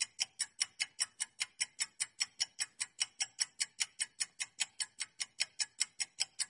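Quiz countdown-timer sound effect: evenly spaced, sharp clock-like ticks, about six a second, marking the seconds left to answer.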